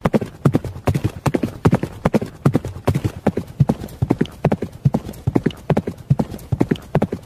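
Horse hoofbeats at a quick, uneven clip-clop, a dubbed sound effect rather than a real horse.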